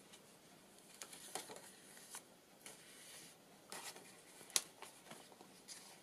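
Paper and card pages of a handmade junk journal being turned and handled: faint rustling and light taps, with one sharper click about four and a half seconds in.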